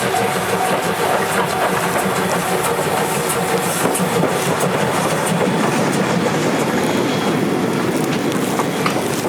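The steam-hauled Paleo Express train passing, its wheels clattering over the rail joints in a steady run with scattered clicks.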